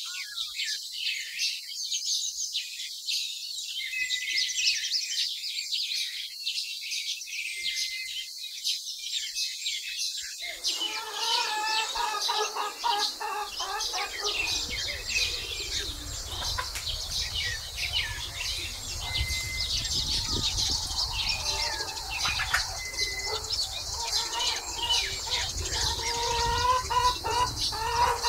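Small birds chirping over and over. About ten seconds in, lower, fuller calls join them, with a low rumble from about fourteen seconds.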